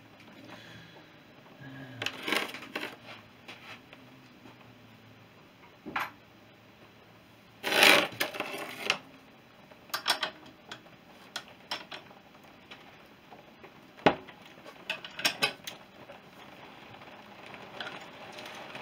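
Metal hand tools and parts clinking and knocking against a motorcycle's steel drum brake plate on a workbench: scattered clicks and short clatters, the loudest clatter about eight seconds in and a sharp knock near fourteen seconds.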